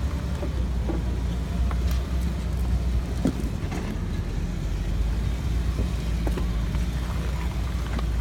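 Jeep Wrangler Rubicon crawling slowly over jagged rocks: a steady low engine and drivetrain rumble with scattered small knocks and creaks from the suspension and body.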